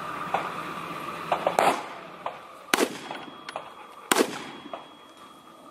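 Rifle shots fired from behind a barricade at targets: three sharp shots a little over a second apart, with fainter sharp clicks between them.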